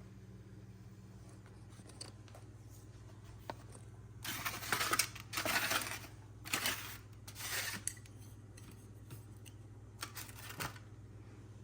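Four short bursts of scraping and rustling from objects being handled, then a few light clicks, over a steady low hum.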